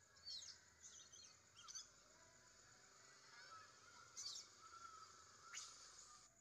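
Faint, short high-pitched animal chirps, about five of them, over a steady high hiss.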